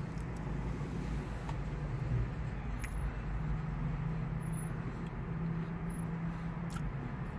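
Steady low vehicle hum heard from inside a minivan's cabin, with a few faint clicks.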